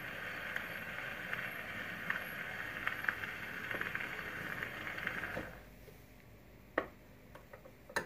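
Surface hiss of a 78 rpm shellac record on an acoustic gramophone after the recorded narration has ended, with a click about every three-quarters of a second, once per turn of the disc. The hiss cuts off about five and a half seconds in. A sharp click follows a second later, then a few light ticks of the machine being handled.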